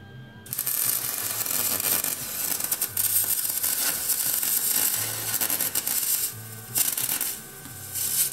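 Lincoln MIG welder's arc crackling as it runs one bead of about six seconds, then two short bursts near the end. The steel being welded is galvanized, which the welder blames for the poor, spattery weld.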